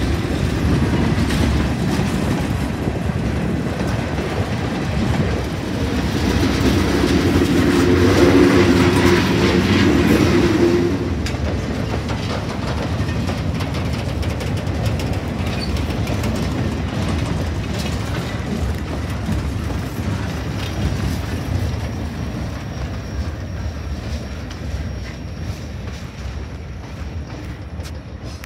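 Freight cars rolling past close by: hoppers, stake flatcars and boxcars, their steel wheels clattering over rail joints in a continuous rumble. From about 6 to 11 s a steady whine sits over the rumble. The sound fades over the last few seconds as the train draws away.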